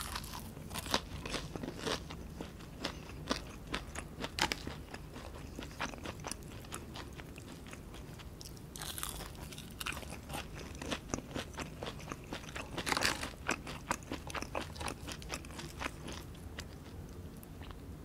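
Close-miked biting and chewing of crispy battered fried food, starting with an onion ring: a steady run of sharp crunches, denser bursts of crunching about nine and thirteen seconds in.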